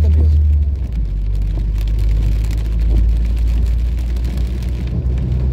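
Steady low engine and tyre rumble heard inside a car cabin while driving on a rain-soaked road.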